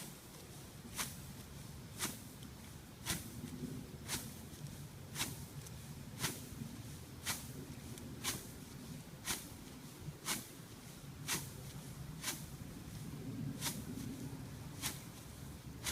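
A homemade stomper-crimper board pressing down standing cereal rye underfoot, one step about every second, each stomp a sharp crackle of crushed stems.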